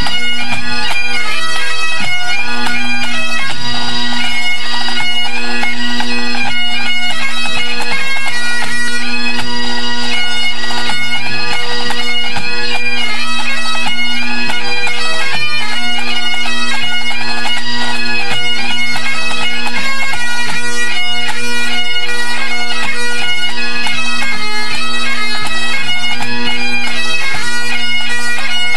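A pipe band's Great Highland bagpipes playing a tune together over a steady drone, with drums beating along. This is the band's tune-up before competing.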